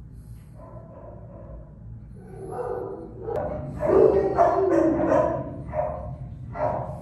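Dogs barking, a quick run of barks that starts about two and a half seconds in and grows louder.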